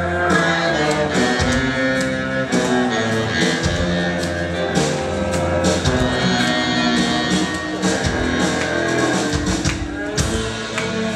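Live rock band playing an instrumental passage: electric guitars, bass guitar and drum kit, with saxophone and tuba.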